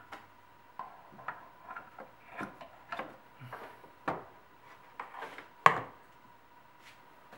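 Irregular clicks and knocks of a plastic DISA valve being handled and fitted into a BMW E46 intake manifold, with one sharper knock a little past two thirds of the way in.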